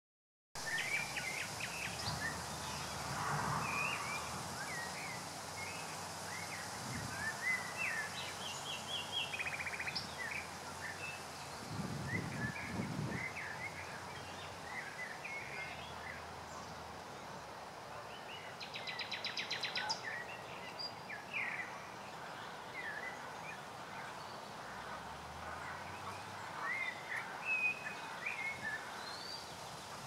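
Common nightingale singing: a string of varied short whistles and chirps, broken by fast runs of rapidly repeated notes, the loudest run swelling up about two-thirds of the way through.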